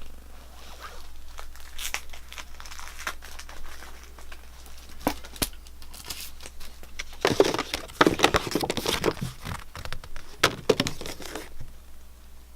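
Packaging crinkling and tearing as it is opened by hand, in irregular crackles, loudest in a dense burst a little past halfway.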